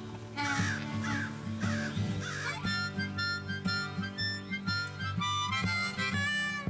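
Background music led by a harmonica, with its notes bending and holding over a steady bass line.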